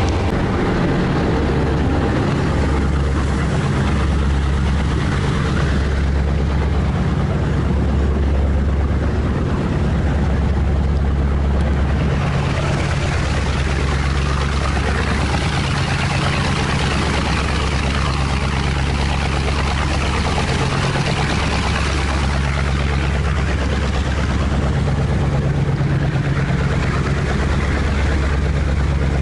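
River cruise boat's engine running with a steady low drone, under a rushing wash of noise.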